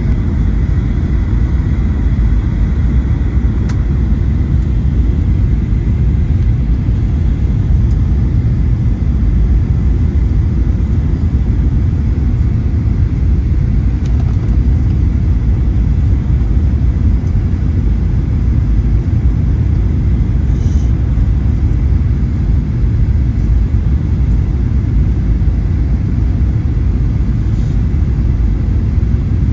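Steady low rumble of an airliner heard from inside the cabin, engines and rushing air, on final approach to the runway.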